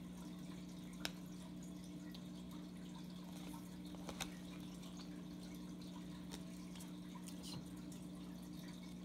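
A steady low electrical hum with a few soft clicks and ticks of baseball cards being flipped through and handled, the sharpest about a second in and about four seconds in.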